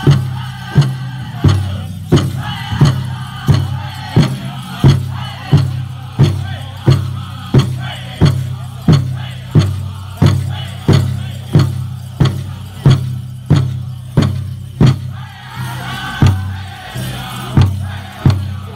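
Powwow drum group: a large drum struck in unison in a steady beat, about three strikes every two seconds, with the singers' voices over it, the singing stronger near the end.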